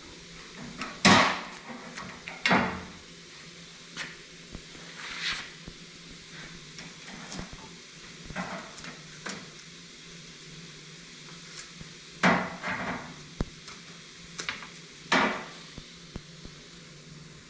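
Irregular knocks and clanks of new steel truck-bed rails being handled and set down, about eight in all, the loudest about a second in and twice more near the end. A steady low hum runs under them.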